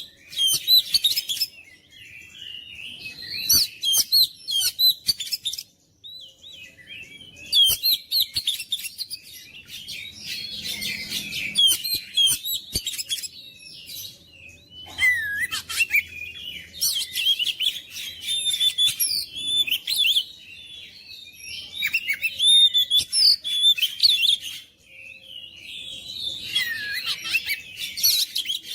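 Oriental magpie-robin (kacer) singing loudly: rapid, varied high phrases in bouts of a few seconds with short pauses between.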